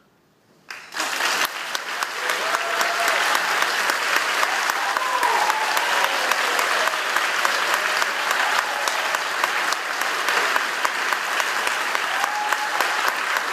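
Audience applause that starts suddenly about a second in and carries on steadily, with a few cheers and shouts mixed in.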